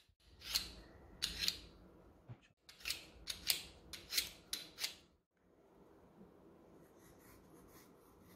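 Hand-held vegetable peeler scraping the skin off a cucumber in short strokes: a few strokes, a pause, then a quicker run of about six, stopping about five seconds in.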